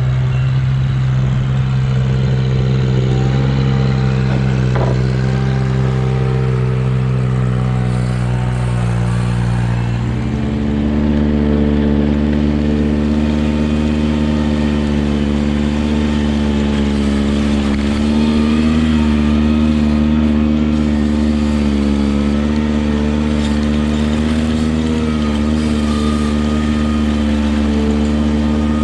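Ventrac 4500Z compact tractor's diesel engine running steadily, then stepping up to a higher, steady pitch about ten seconds in as the revs rise.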